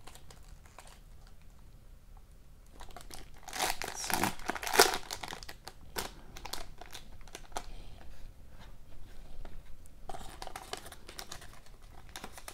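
Foil wrapper of a 2020-21 Ultimate Collection hockey card pack crinkling as it is handled and opened. It is quiet for the first few seconds, the loudest crinkling comes about four to five seconds in, and more rustling follows near the end.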